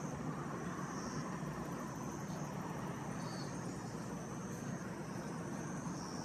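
Steady outdoor background noise: a low, even rumble with faint, short high-pitched chirps above it.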